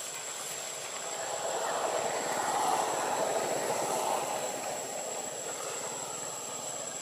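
Outdoor ambience: a steady high insect whine, with a broad rushing noise that swells from about a second in and fades out after about four seconds.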